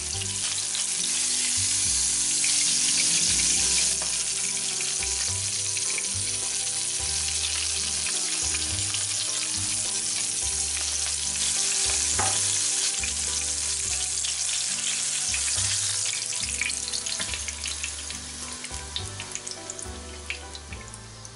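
A rolled, stuffed turkey breast sizzling as it fries in oil in a frying pan. The sizzle dies down over the last few seconds into scattered crackles.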